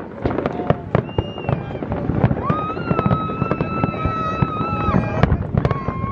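Fireworks going off in quick succession: many sharp bangs and crackles. A long, high held tone rises over them about two seconds in, and another begins near the end.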